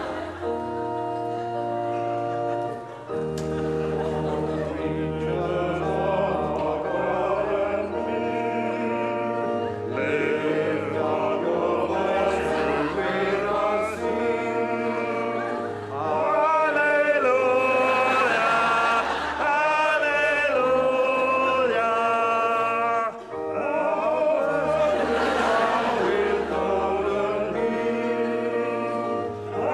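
A church congregation singing a hymn over held organ chords. The singing gets louder about halfway through.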